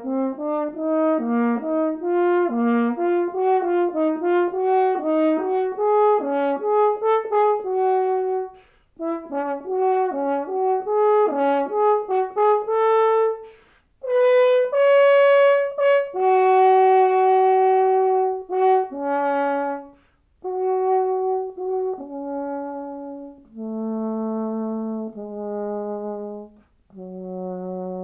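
Solo French horn playing an audition etude unaccompanied: quick running passages for about the first half, broken by short breaths, then slower sustained notes that step down to a low held note near the end.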